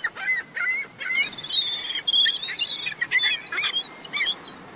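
Several downy gull chicks cheeping, many short high calls overlapping, some rising and some falling in pitch.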